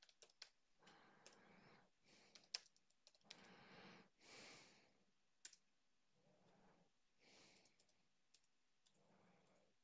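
Faint typing on a computer keyboard: scattered, irregular key clicks, with a few soft hissy swells of noise between them.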